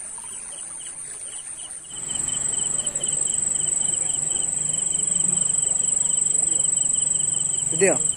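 Night chorus of crickets and other insects: a steady high trill, with a second insect pulsing a few times a second, both louder after a cut about two seconds in. A brief sharp call sounds near the end.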